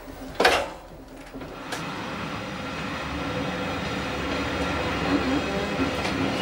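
A sharp clunk, then an electric train pulling away: a steady running hum with wheels on the rails, growing gradually louder as it picks up speed.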